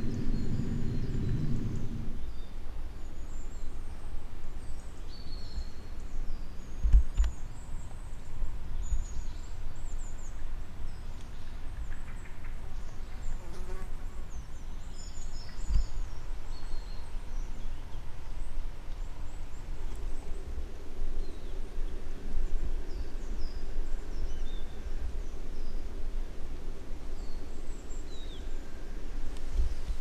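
Forest ambience: scattered short high chirps of small birds over a steady low rumble, with two low thumps about 7 and 16 seconds in. A low drone stops about two seconds in, and a fainter drone comes in about two-thirds of the way through.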